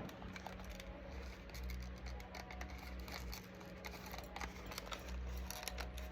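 Small clicks, taps and rustles of product packaging being handled by someone trying to open it, over a steady low hum.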